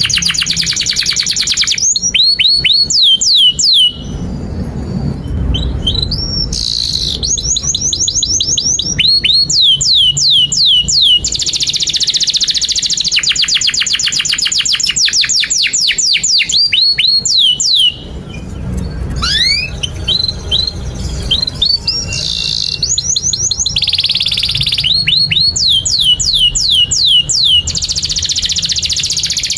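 Domestic canary singing a long, continuous song. Fast rolling trills alternate with runs of repeated, downward-sweeping whistled notes, broken by a couple of short pauses.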